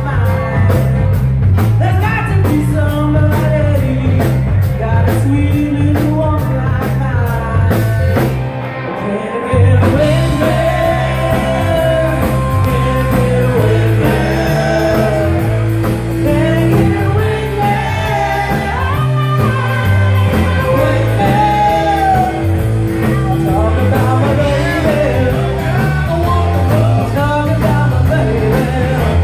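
Live rock band playing, with a woman singing lead over electric guitar, bass and drums. About eight seconds in, the drums drop out briefly before the full band comes back in.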